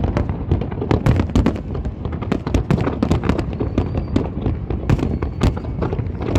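Fireworks display going off in a rapid barrage: many sharp bangs and crackles a second over a continuous low rumble of shell bursts.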